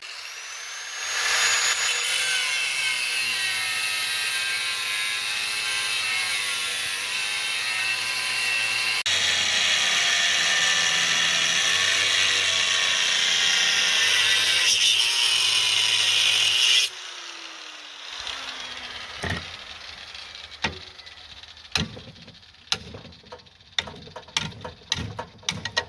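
Electric power tool cutting through a steel control lever for about sixteen seconds, with a brief dip in the middle, then stopping suddenly and winding down with a falling tone. Scattered light clanks and knocks follow.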